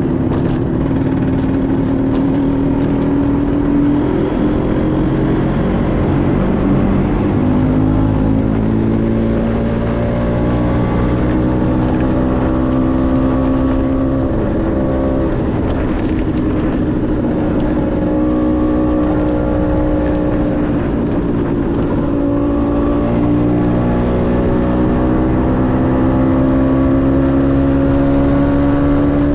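Motor scooter's engine running under way, its note climbing slowly and dropping back several times as the rider accelerates and changes gear, over a steady rush of wind and road noise.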